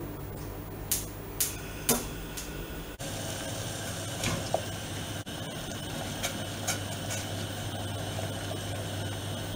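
A gas stove's burner igniter clicks three times in quick succession as the knob is turned. Then a pot of water boils steadily while noodles are stirred in it with chopsticks, with a few light taps against the pot, over a steady low hum.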